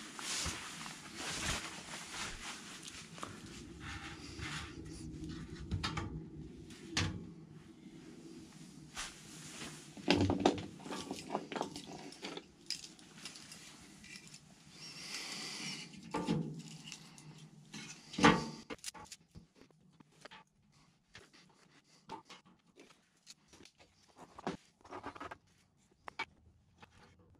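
Irregular knocks, taps and rustling, with louder thumps about ten and eighteen seconds in, growing sparser in the second half.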